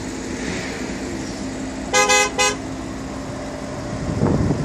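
A car horn sounds two short beeps in quick succession about two seconds in, over steady background noise with a faint low hum.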